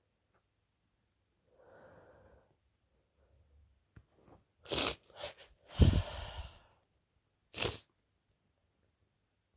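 A woman sneezing in a sneezing fit: after a faint breath in, a rapid run of sharp sneezes in the second half, the loudest and longest in the middle of the run, then one last short sneeze.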